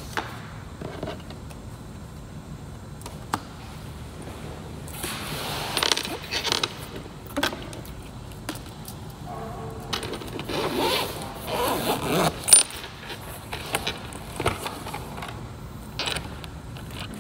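Things being handled and set down on a desk: papers and a padded laptop sleeve rustling and sliding, with scattered light knocks and clicks, the sharpest about twelve seconds in.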